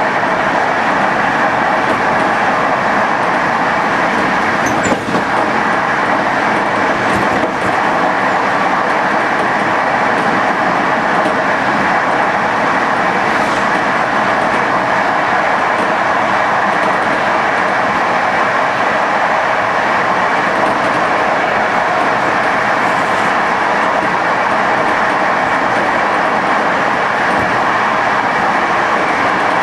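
PKP TLK passenger train running along the line at speed: a steady rumble of wheels on rail, with a couple of faint clicks from the track.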